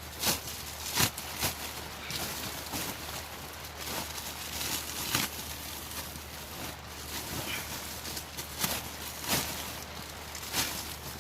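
Rustling and crinkling of a flexible air duct's insulation and plastic outer jacket as it is worked over the connection, with irregular sharp clicks and crackles.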